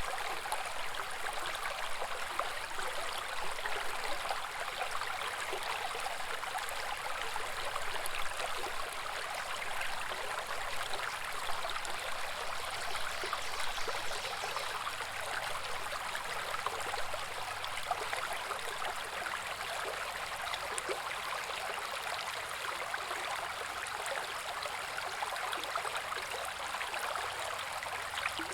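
Small babbling brook: water running and splashing over rocks in a steady, even bubbling.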